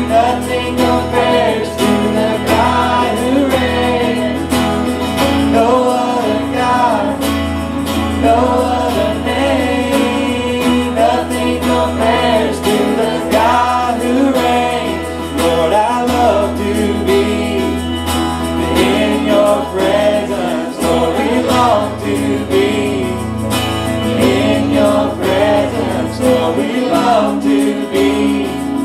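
Live church worship band playing a contemporary praise song: guitars and held bass notes under sung melody.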